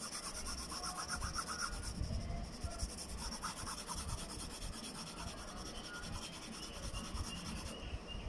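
Pencil shading on paper: the graphite point rubbing steadily back and forth over the drawing.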